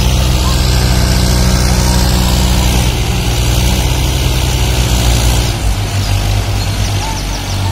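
Diesel tractor engines running hard under load, pulling a stuck, fully loaded sugarcane trolley through mud and water. The engine note drops a little after five seconds in.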